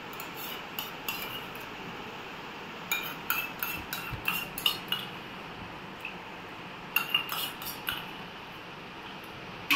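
Metal spoon clinking and scraping against a small stainless-steel bowl as the last of the custard is scraped out, in three runs of quick taps with pauses between, and a louder clink at the very end.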